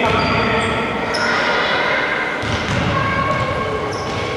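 Basketball bouncing on a wooden gym court during live play, with a few short high squeaks and players' voices in the hall.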